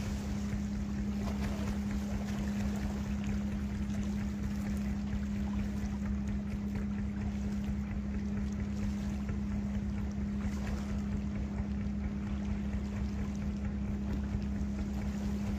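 Steady low motor hum, one unbroken tone, under wind noise on the microphone.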